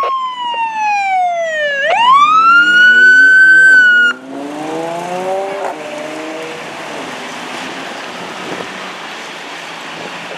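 Fire engine's siren wailing down, then sweeping sharply back up and holding high before it is switched off abruptly about four seconds in. Under it and after it the truck's engine accelerates, rising in pitch, then runs on steadily with road noise as the truck pulls away.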